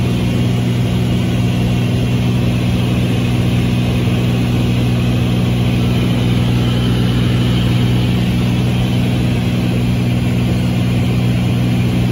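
Single piston engine and propeller of a 1950s Beechcraft Bonanza droning steadily in level flight, heard inside the cabin: a constant low hum over a rush of air noise.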